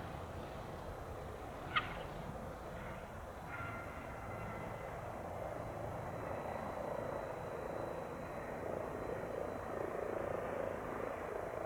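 Light single-engine propeller airplane, a Cessna 182 Skylane RG, running at a distance with a steady rumble. The rumble grows a little louder later on. A brief sharp sound comes about two seconds in.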